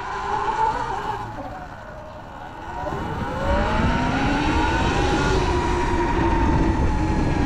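Sur-Ron electric dirt bike's motor and belt drive whining as the bike rides: the whine drops in pitch as it slows, then rises and levels off as it speeds up again from about three seconds in. The rider puts the bike's louder-than-usual noise down to the drive belt.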